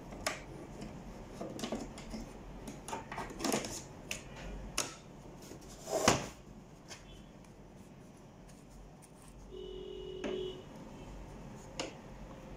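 Plastic parts of an Epson LQ-310 dot-matrix printer being handled and fitted into place: scattered clicks and knocks, the loudest a thump about six seconds in as the printer body is shifted. A short faint tone sounds about ten seconds in.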